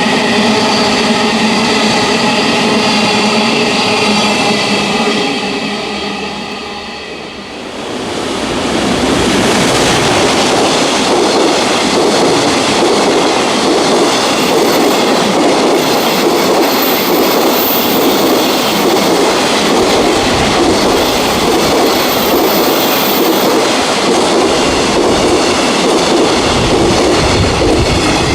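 A JR Freight electric locomotive goes by with a steady multi-tone drone that fades about seven seconds in. A long train of container wagons then rolls past with continuous wheel rumble and clatter on the rails. A thin high-pitched wheel squeal runs for about ten seconds in the middle.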